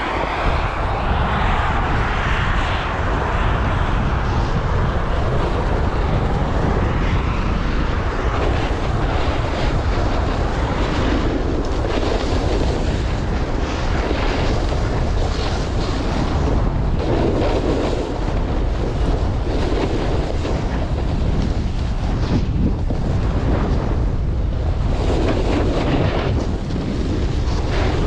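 Strong wind buffeting the microphone in a steady low rumble, mixed with the hiss of a snowboard running over snow during a downhill run.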